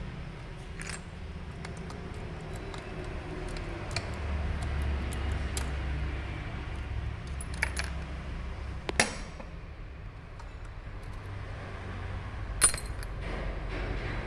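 Small metal parts and tools clicking and clinking as a diesel injection pump is taken apart by hand, with two sharper metallic knocks, one past the middle and one near the end.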